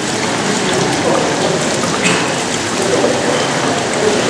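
Indoor swimming pool water noise: a steady wash of running and lapping water, with light splashing as a swimmer lowers herself into the pool.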